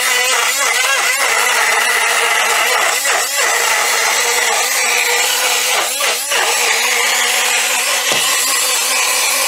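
Handheld portable bottle blender running steadily with a motor whine, blending chunks of muskmelon with water into juice. Its pitch sags briefly twice, about three and six seconds in, as the motor takes up the load.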